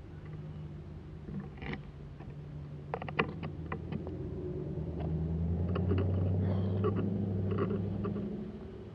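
A car's engine hum growing louder and then fading as it passes slowly, with scattered light clicks and taps in between.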